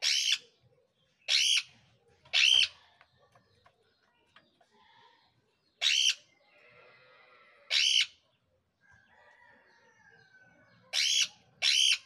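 Caged green parrots giving short, harsh, high-pitched screeching calls, seven in all at irregular intervals, with fainter chatter between them.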